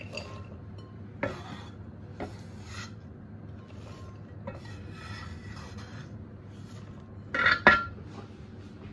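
Cleaver blade scraping across a wooden chopping board, sweeping cut long beans into a glass bowl, with a few light knocks against the board and bowl. A louder knock and rattle comes about seven and a half seconds in.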